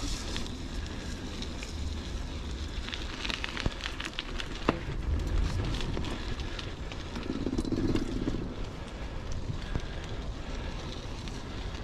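Huffy Good Vibrations klunker bike rolling along a dirt trail: steady tyre rumble and crunching over the ground, with scattered sharp rattles and knocks from the bike, most of them a few seconds in.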